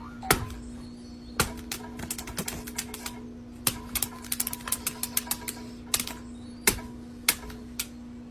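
A quick, irregular run of sharp clicks and taps, thickest in the middle, over a steady low hum.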